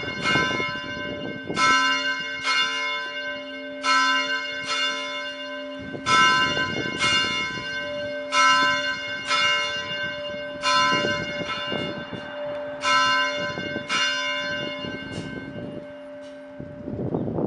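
A single church bell being rung, struck in pairs of strokes about every two seconds, each stroke ringing on into a lasting hum. The strokes grow weaker near the end as the ringing winds down.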